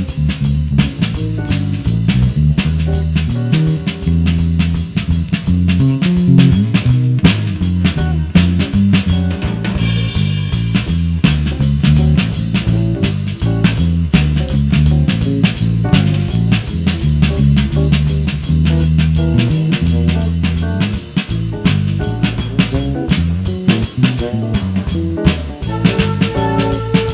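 Instrumental funk-jazz jam played on electric guitar, bass guitar and drum kit, with a busy bass line under steady drum hits. Near the end, held higher melody notes come in.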